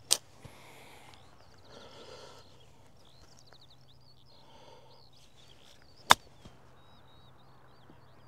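Golf chip shot from thick grass: one sharp click of the club striking the ball about six seconds in, with another similar, slightly quieter click right at the start.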